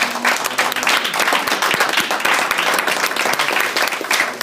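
Audience applauding: dense, steady hand clapping that thins slightly near the end.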